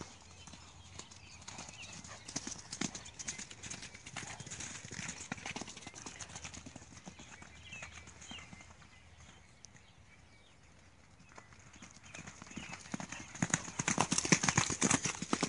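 Two horses running on wet, muddy grass: a scatter of hoofbeats that thins out and goes quieter midway, then comes back thickest and loudest near the end.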